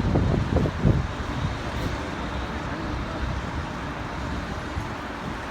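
Sandstorm wind buffeting the microphone: a few strong gusts in the first second, then a steady low rumbling hiss.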